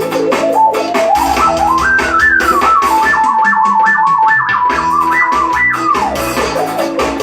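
Electronic keyboard playing a gliding synth lead melody over a drum beat and bass accompaniment. The melody climbs over the first two seconds, moves in quick repeated notes up high, then slides back down about six seconds in.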